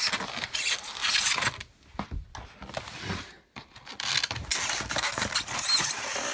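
Packaging being handled during an unboxing: irregular scraping and rustling with small clicks and knocks, with short pauses about two seconds in and again midway.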